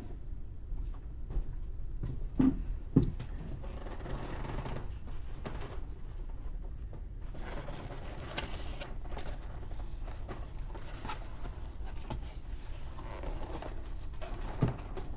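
Toy packaging being handled and opened: rustling in several stretches, with sharp knocks about two and a half and three seconds in and another near the end.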